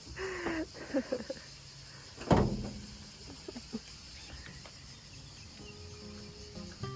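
Steady insect chirring in the background, with a short whine-like call at the start and a single sharp knock a little over two seconds in. Soft music comes in near the end.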